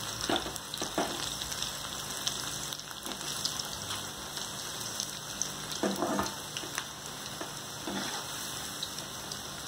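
Batter-coated cauliflower florets deep-frying in very hot oil in a kadai: a steady crackling sizzle, briefly louder about six seconds in.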